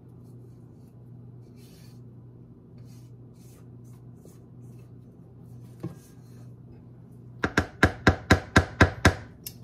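Spatula scraping cake batter faintly around a stainless steel mixing bowl, then about ten quick sharp knocks near the end, around five a second, as the spatula is rapped against metal to shake the batter off.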